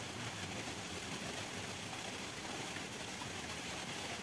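Steady outdoor background noise by a small stream: an even hiss with a faint low hum and no distinct events.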